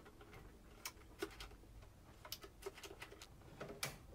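Wooden drawer boxes set onto metal drawer slides and pushed into a nightstand: a scattering of light clicks and clacks, about eight in all.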